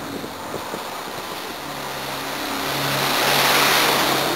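A vehicle drives past close by, its engine hum and road noise swelling to a peak about three and a half seconds in, then fading.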